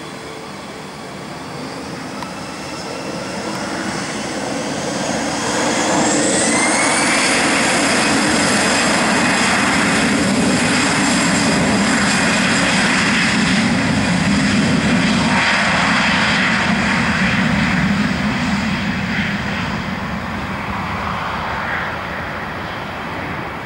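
Airbus A320-214's twin CFM56-5B turbofan engines spooling up to takeoff thrust, with a rising whine about five seconds in, then loud and steady through the takeoff roll, fading as the jet moves away near the end.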